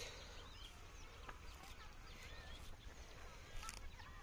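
Faint bird chirps scattered throughout, over low, steady background noise, with a few soft clicks.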